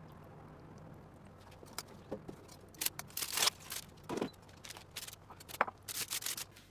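Kitchen items being handled: a series of irregular clicks and knocks, starting about two seconds in, over a faint low hum.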